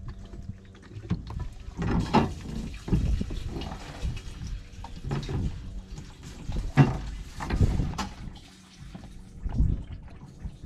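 Fuel being poured from a plastic jug through a clear hose into a fuel cell, coming in irregular bursts, with bumps and knocks from handling the jug and hose.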